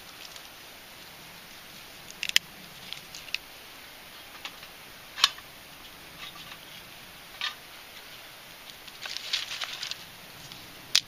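Small dry sticks crackling and snapping: a few single sharp snaps spread apart, with a quick run of small crackles about nine seconds in.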